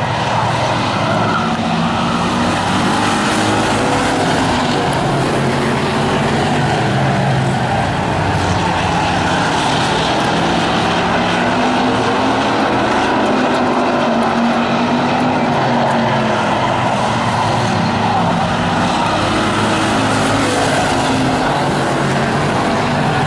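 Hobby Stock race cars running at racing speed in a close pack, their engines making a steady, loud drone whose note wavers slightly as they lap.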